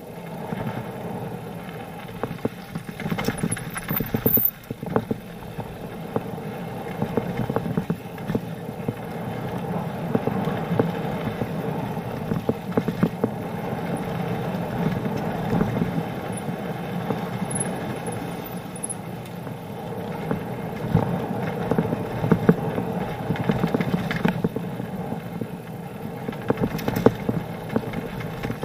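Mountain bike riding fast downhill over a loose gravel and dirt trail: tyres rolling and crunching over stones, with the bike clattering and knocking over the bumps in a steady rush of noise.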